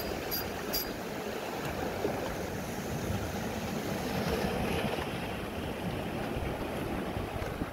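Sea washing on a rocky shore with wind on the microphone: a steady rushing noise. A few sharp high ticks sound in the first second.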